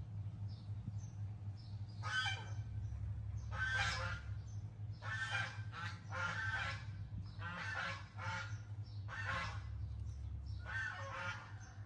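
A series of about seven loud, harsh animal calls, each roughly half a second long and a second or so apart, with small high squeaks in the gaps.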